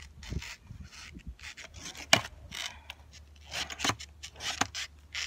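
Skateboard on rough asphalt: scraping and rubbing noises with a sharp clack about two seconds in and a run of smaller knocks near the end.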